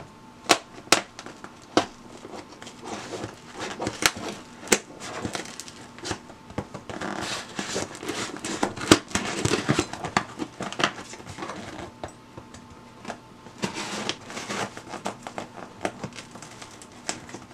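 Cardboard box being opened by hand: tape and packaging tearing and crinkling, with scattered sharp clicks and knocks.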